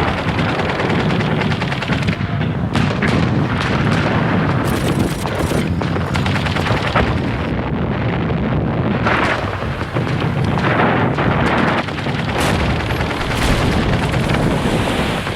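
Battle soundtrack of gunfire and artillery: rapid shots and booming explosions in a continuous, dense din.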